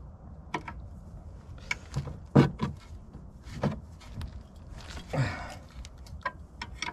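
Spanner clicking and knocking against the rear brake caliper as its 13 mm slider bolts are undone: a string of separate sharp knocks, the loudest about two and a half seconds in, with a brief rustle around five seconds.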